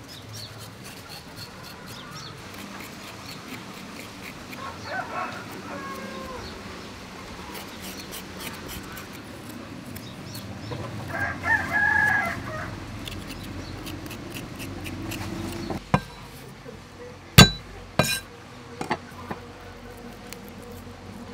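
A rooster crowing twice, about five seconds in and again, louder, about eleven seconds in. A few sharp knocks follow between about sixteen and nineteen seconds in, the one at about seventeen seconds the loudest.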